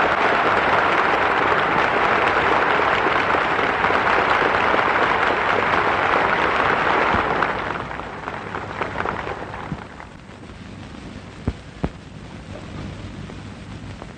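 Large crowd applauding, a dense, even clatter of clapping that fades away about eight to ten seconds in. It leaves faint background hiss with two short clicks.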